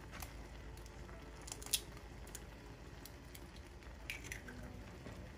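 A pot of instant noodles boiling hard, bubbling steadily, with a few short sharp clicks and pops. The loudest click comes about a third of the way in, and a small cluster follows near the end.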